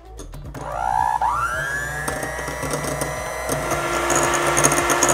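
Electric hand mixer whipping fresh cream in a glass bowl. The motor whine rises in pitch over the first second or two as it comes up to speed, then runs steadily.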